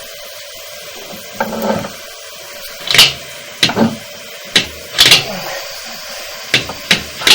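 A series of sharp knocks and clunks, about eight of them spread irregularly after the first second and a half, over a steady background hum.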